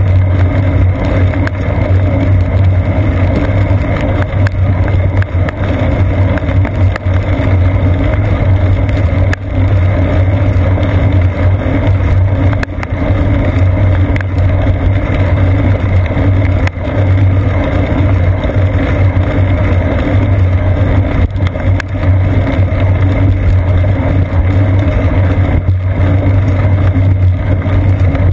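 Steady droning rumble of road vibration and wet-tyre noise from a bicycle riding on rain-soaked pavement, carried through a seat-post-mounted GoPro Hero 2. Now and then there is a short knock from a bump in the road.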